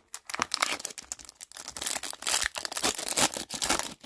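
A hockey card pack's wrapper crinkling and being torn open by hand, a dense run of irregular crackles.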